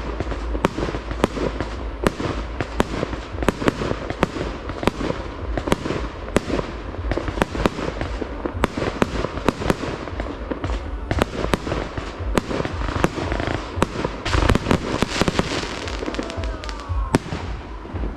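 Aerial firework shells bursting in quick succession, sharp bangs coming several times a second, thickening into a denser volley about two thirds of the way through. A few faint whistles glide downward near the end.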